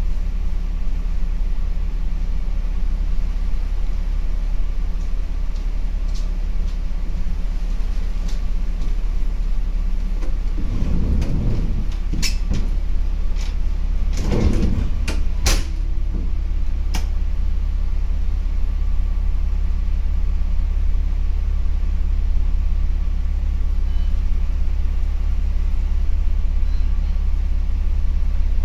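A diesel railcar's engine idling steadily while the train stands, heard from inside the carriage. A few clicks and knocks and short rushes of noise come between about 10 and 17 seconds in.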